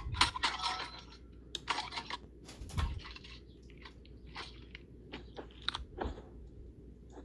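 A ceiling fan being broken apart: a run of irregular crunches and cracks, loudest and densest in the first three seconds, then sparser smaller snaps.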